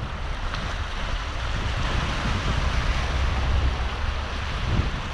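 Small waves washing and splashing against rocks at the water's edge, with wind buffeting the microphone as a steady low rumble.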